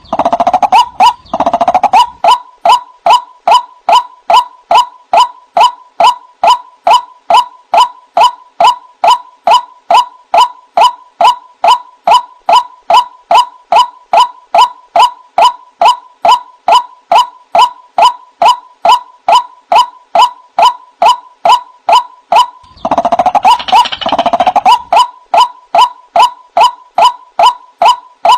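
White-breasted waterhen (ruak-ruak) calling a monotonous series of "wak" notes, about two a second. Louder, rougher calling breaks in over the series twice, near the start and again toward the end.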